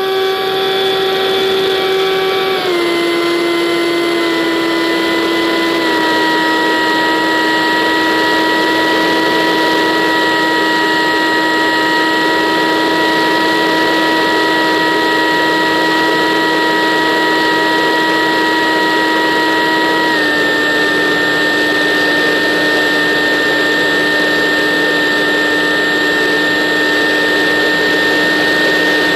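Electric motor and propeller of a radio-controlled model aircraft, heard from a camera on board: a loud, steady whine that drops slightly in pitch in small steps, about three seconds in, again at six, and again about twenty seconds in.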